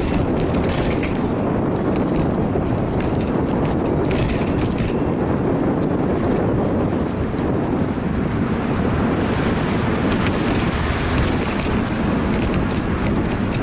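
Steady wind and road rumble picked up by a bicycle-mounted action camera while riding, with several clusters of light rattling clicks from the bike and mount.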